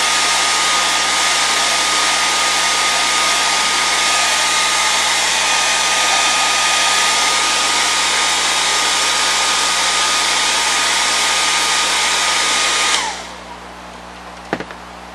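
Small handheld hair dryer blowing steadily with a thin high whine, drying contact cement; it is switched off about 13 seconds in. A couple of light knocks follow shortly after.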